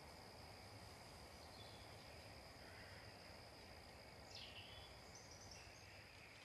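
Faint outdoor dusk ambience: a steady high-pitched insect drone over low hiss, with a few short bird chirps, the clearest about four seconds in.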